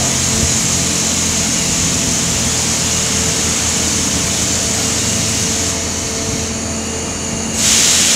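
Steady drill-floor machinery noise on an offshore drilling platform: a constant hum with a strong hiss over it. Near the end a louder rush of hiss suddenly starts.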